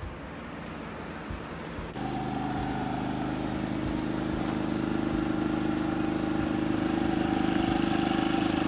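About two seconds in, a Predator 3500 inverter generator's small single-cylinder engine comes in, running at a steady, even pitch and growing slightly louder. Before that there is only a quieter low background.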